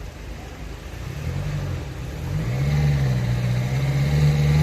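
A motor vehicle engine running close by, its revs rising about a second in and loudest near the end, over a faint steady hiss.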